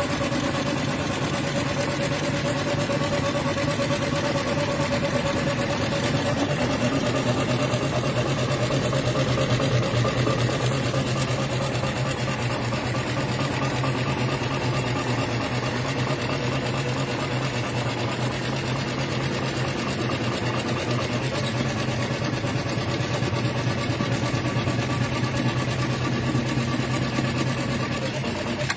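JUKI AMS-224C computer-controlled pattern sewing machine running through a programmed stitching cycle: fast, even needle stitching over a steady motor hum, cutting off right at the end.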